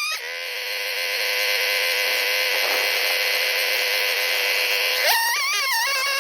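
Chainsaw running at a steady pitch under load while cutting white oak, then its pitch jumps up and wavers about five seconds in as the engine revs freely.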